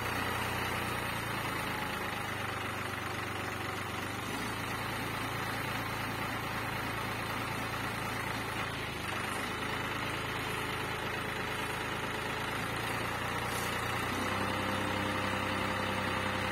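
Tractor diesel engine idling steadily, its note shifting slightly about four seconds in and again near the end.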